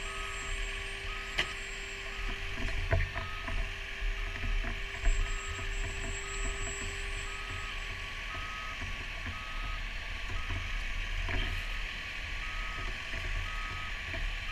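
A vehicle's reversing alarm beeping about once a second over the steady low rumble of a running fire engine, with a few sharp knocks of handled equipment.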